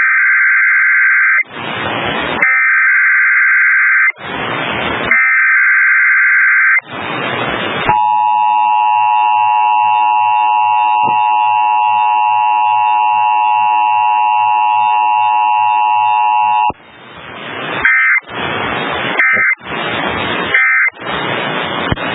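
Emergency Alert System test on FM radio. Three screeching SAME data header bursts come first, with hiss between them. At about eight seconds the steady two-tone attention signal starts and sounds for about nine seconds, then three short end-of-message data bursts follow near the end.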